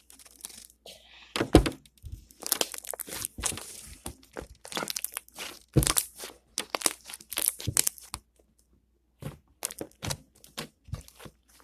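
Slime being stretched and squeezed by hand, its trapped air bubbles popping in a run of sharp, irregular pops and crackles, with a brief pause about two-thirds of the way through.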